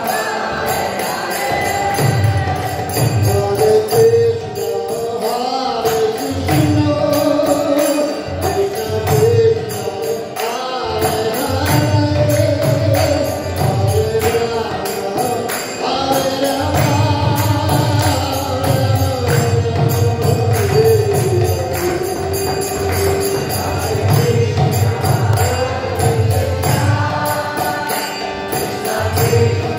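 DJ kirtan: devotional chant sung to a gliding melody over a steady electronic bass beat, with jingling percussion ticking fast on top.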